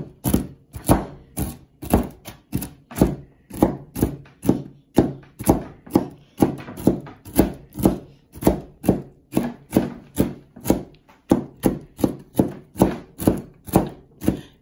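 Large kitchen knife chopping walnuts on a plastic cutting board: an even run of knocks, about two a second, each stroke cutting through the nuts and striking the board.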